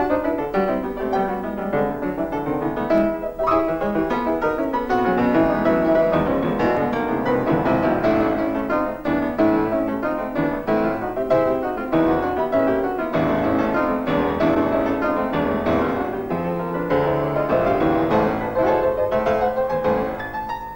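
Background music played on a piano, a steady flow of many quick notes.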